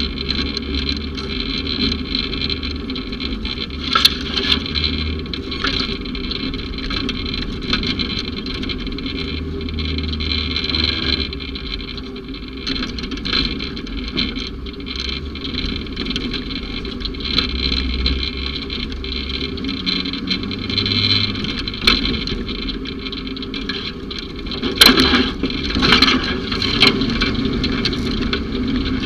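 Side-by-side utility vehicle running steadily under way, with a constant noise and occasional sharp knocks and rattles, a cluster of them near the end.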